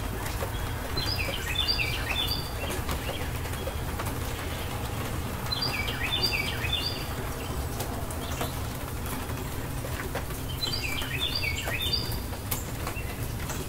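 Steady rain with a low rumble underneath. A songbird sings a short phrase of quick falling notes three times, about five seconds apart.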